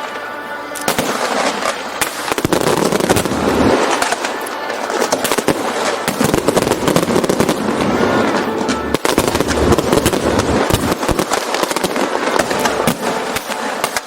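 Aerial fireworks going off in a dense, continuous barrage: many bangs and crackles close together, with one sharp bang about nine seconds in.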